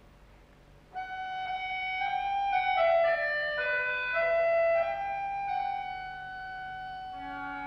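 A duet of bayans, Russian chromatic button accordions, opening a folk-dance piece. About a second in, the bayans enter with a melody of held reed notes that moves through several pitches. Before that there is only a faint steady hum.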